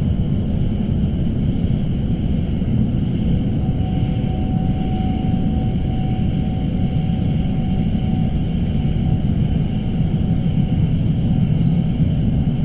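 Suspense ambience: a steady, low rumbling drone, with a faint thin high tone held for a few seconds in the middle.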